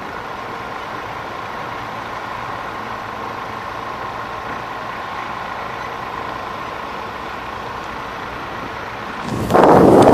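A heavy vehicle engine running steadily with a constant hum. About nine seconds in, a sudden loud rushing noise takes over.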